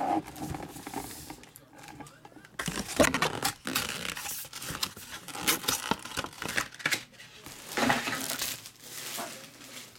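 Foil-wrapped trading card packs crinkling and rustling in irregular handfuls as they are handled and stacked, with the cardboard display box being moved.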